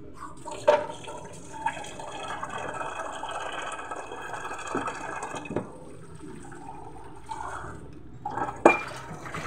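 Water running into a sink or basin for a few seconds while things are washed by hand, with dripping and splashing around it. Two sharp knocks stand out, one near the start and one near the end.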